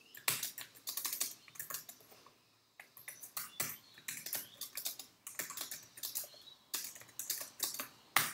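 Typing on a computer keyboard: irregular runs of keystroke clicks, with a short pause about two and a half seconds in.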